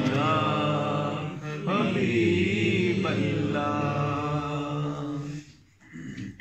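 A man's voice reciting a naat, sung in long, held, ornamented melodic lines. It stops about five seconds in.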